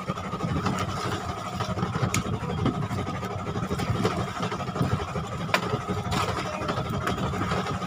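Outrigger fishing boat's engine running steadily, with a couple of sharp clicks about two and five and a half seconds in.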